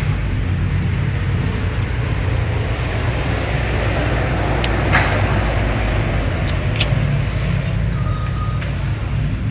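Steady city street traffic noise: a continuous low rumble of passing vehicles, with a short sharp sound about five seconds in.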